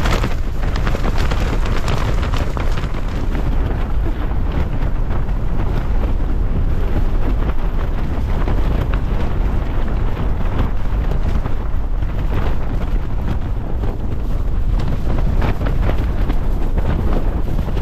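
Strong wind gusts battering a small backpacking tent, heard from inside: a loud, continuous rush with the fabric flapping and slapping under the gusts.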